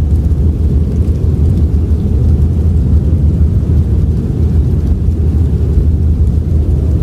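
Steady, deep rumble of a howling blizzard wind, loud and unbroken, with almost nothing in the high register.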